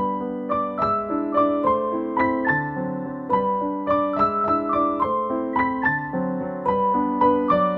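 Background music: a piano-like keyboard playing a gentle melody of single notes at a steady, even pace, about three notes a second.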